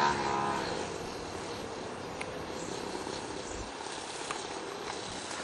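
Radio-controlled model airplane in flight: a brief pitched propeller whine at the start, then a faint steady drone as it flies off.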